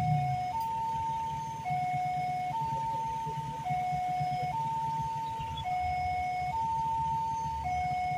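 Electronic two-tone warning siren of a railway level crossing, switching back and forth between a lower and a higher tone about once a second. It warns that a train is approaching. A steady low rumble runs beneath it.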